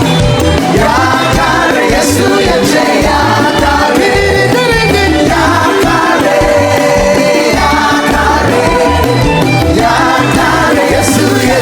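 Gospel praise music: a choir or congregation singing together over a band with a steady, pulsing bass beat.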